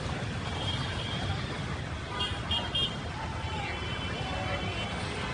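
Street traffic noise, a steady low rumble of vehicles, with two short horn toots about two and a half seconds in.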